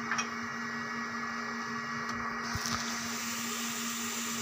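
Steady low background hum with a faint hiss, the hiss turning a little brighter about halfway through; a couple of faint clicks right at the start.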